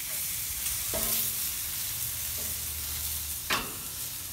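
Filet mignon steaks sizzling on the hot grates of a gas grill, a steady hiss. There is a sharp click about three and a half seconds in as metal tongs move a steak.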